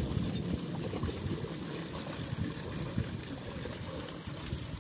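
Water splashing and churning continuously as a dense mass of fish thrashes inside a hauled-in fishing net, a rapid irregular patter of many small splashes.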